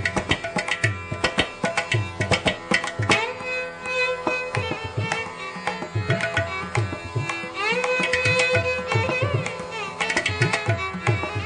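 Indian classical instrumental music with tabla drumming and a plucked string instrument playing sliding melodic notes.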